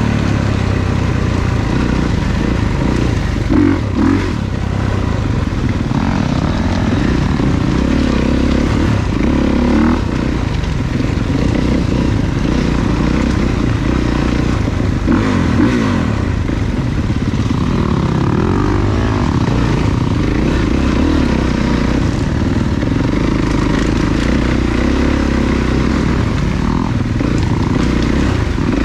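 Off-road dirt bike engine running under load on a trail ride, its pitch rising and falling steadily as the throttle opens and closes.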